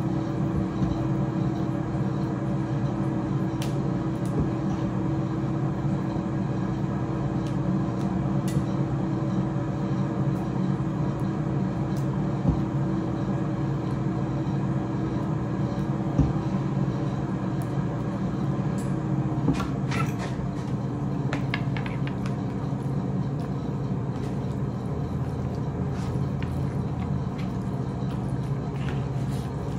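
A steady machine hum with several fixed tones runs throughout. A few light clicks of utensils against a plate come around the middle.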